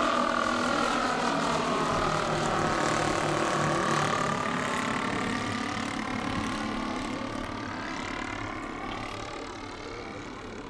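Twin propeller engines of a large radio-controlled Beechcraft 18 model in flight, a steady buzzing drone whose pitch dips slightly midway, then fading as the model flies away.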